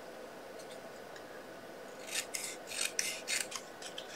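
A handful of short, rasping scraping strokes on paper card, starting about halfway through, as the card piece is trimmed down to size.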